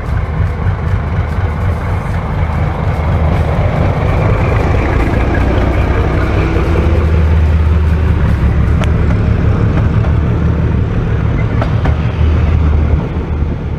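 Diesel locomotive running close past at low speed, its engine a steady low drone that grows louder as it comes alongside and eases off near the end, with a few faint sharp clicks.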